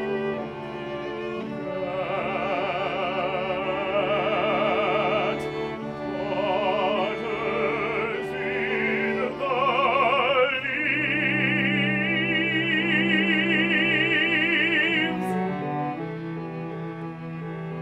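Operatic soprano singing long high notes with a wide vibrato over bowed strings with cello. The voice stops near the end, leaving the strings holding sustained notes.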